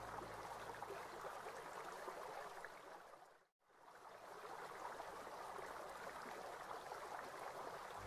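Running water, a steady splashing hiss that drops out to a moment of silence about three and a half seconds in, then resumes.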